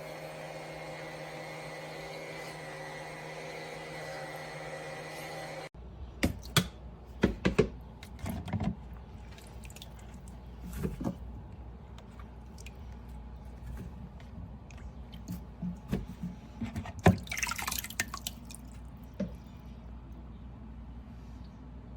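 Water dripping and splashing, with scattered clicks and knocks. For the first six seconds a steady hum runs under it, then cuts off abruptly.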